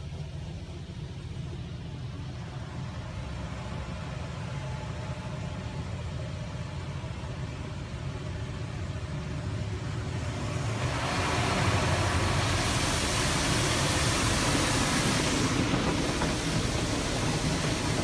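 Automatic car wash heard from inside the car: a steady low rumble, then about ten seconds in a loud hiss as water spray hits the windshield and windows and stays on.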